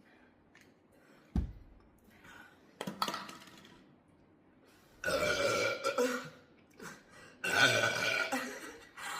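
A person belching from the gas of a bottle of Sprite just drunk: two long, drawn-out burps about five and seven and a half seconds in, each more than a second long. They follow a short low thump and a briefer sound around three seconds in.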